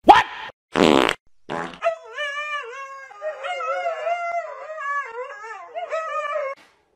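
Husky howling in several long, wavering calls that bend up and down in pitch, starting about two seconds in. A few short noisy bursts come before it.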